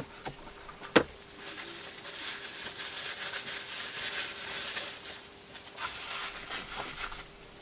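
Packaging rustling and crinkling as a headlamp is taken out of its box, after a sharp click about a second in.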